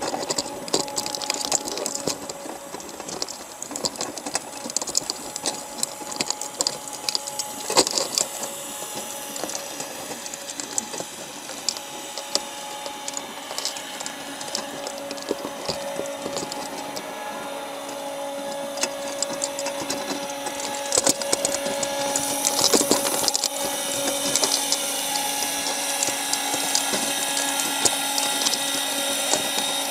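Underwater audio from a crab trap: a steady mechanical hum with several held tones, growing louder and whinier from about 22 seconds in, under frequent sharp clicks and scrapes of crabs' shells and legs on the wire trap.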